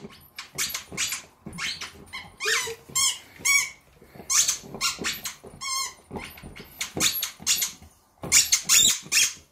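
Bull terrier chewing a squeaky hot-dog toy; the squeaker gives a string of short, irregular squeaks, about two a second.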